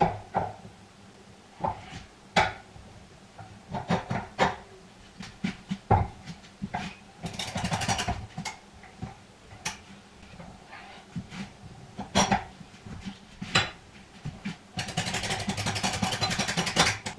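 Square steel tubes knocking and clanking against a homemade square-tube clamping jig as they are set in place. Two runs of rapid clicking come from the jig's yellow trigger clamp being worked, about seven seconds in and again near the end.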